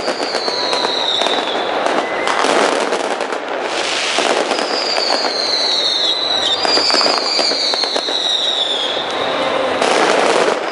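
Fireworks display: dense crackling and popping from bursting shells, with repeated high whistles that slide down in pitch. Louder bursts come about four seconds in and again near the end.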